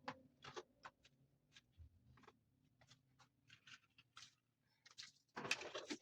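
Faint, scattered light taps and scrapes at uneven intervals, then a louder rush of noise starting about five seconds in.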